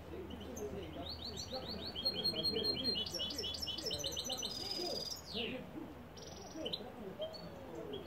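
European goldfinch singing: fast runs of repeated twittering notes, then a buzzy high trill and a quick falling note about five seconds in, with scattered single notes after.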